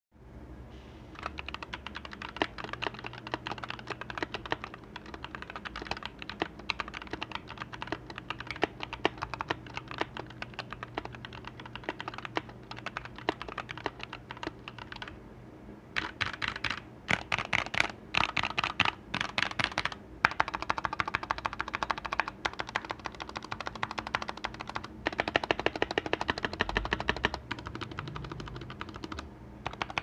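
Stock Keychron K4 mechanical keyboard with Gateron Red linear switches being typed on: a steady, irregular clatter of keystrokes. A short pause about halfway through is followed by a few seconds of faster, louder key presses before ordinary typing resumes.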